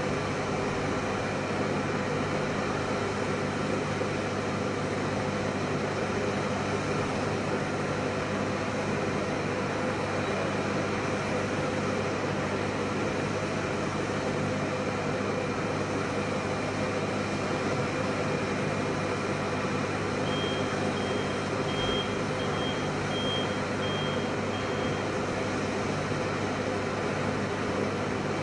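Steady mechanical drone of running engines with several low hums, and a short run of high, evenly spaced beeps about two-thirds of the way in from a forklift's reversing alarm.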